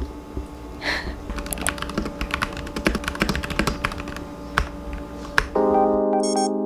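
Typing on a computer keyboard: a quick, uneven run of key clicks over faint background music. Near the end the typing stops and louder electric-piano music comes in.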